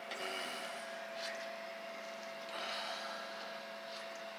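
Steady electrical hum with a couple of faint held tones over a light hiss, with faint handling clicks and rustles.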